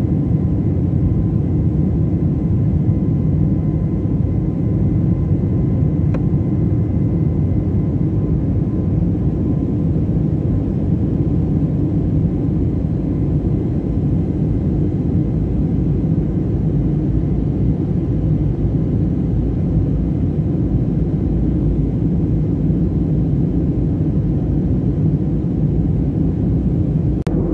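Airliner cabin noise in flight: the steady rumble of the engines and rushing air heard from a window seat, with a faint steady whine above it.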